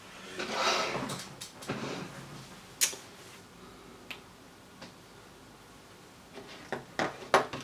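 Scattered small clicks and taps of metal pliers and tiny electronic components being picked up and set down on a cutting mat, a few loud ones close together near the end, after a soft rustle of handling at the start.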